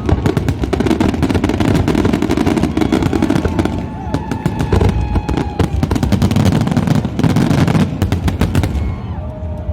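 Fireworks going off in a rapid, nearly continuous barrage: dense cracks and pops over a steady low rumble of booms, like machine-gun fire.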